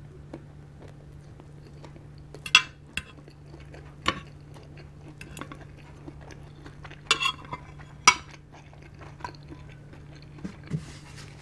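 Metal fork and spoon clinking and scraping against a ceramic plate while noodles are lifted, with several sharp clinks, the loudest about two and a half seconds in and again about eight seconds in.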